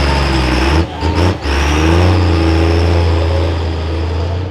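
Pro stock diesel pulling truck's engine running hard at high revs under load, with two brief drops in level about a second in.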